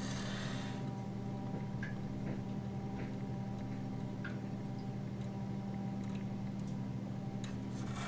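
Soft rubbing at the start and a few small, scattered clicks as a rubber grip ring is stretched and worked over a LaserDisc player's spindle hub. A steady low hum runs underneath.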